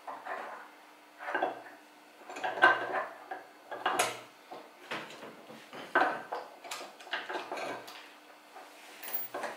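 Small metal parts and tooling being handled on a hand-operated cast-iron arbor press: an irregular string of metallic clinks and knocks, the loudest a little under three seconds in and at about six seconds.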